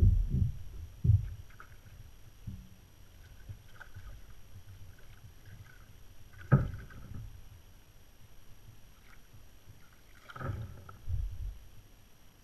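Knocks and bumps against a plastic fishing kayak while a hooked fish is played beside it, with water splashing alongside. The loudest knocks come at the start, sharply about six and a half seconds in, and again near the end.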